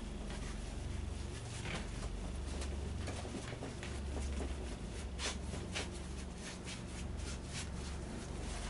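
Large paintbrush sweeping water-based primer across a taut stretched canvas: short scratchy brush strokes, sparse at first and coming in quick succession in the second half, over a low steady hum.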